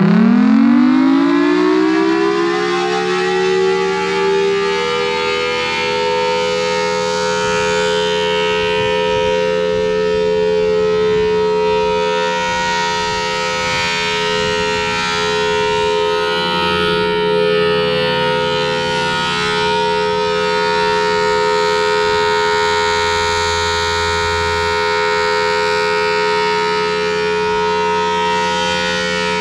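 Federal Signal Thunderbolt 1003 tornado siren finishing its wind-up about two seconds in, then sounding a steady, loud wail at two close pitches.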